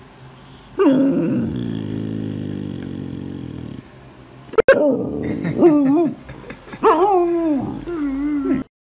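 Husky-type puppy vocalizing: a long, low grumbling growl-howl about a second in, then after a short pause a series of wavering howl-like whines that rise and fall in pitch, stopping just before the end.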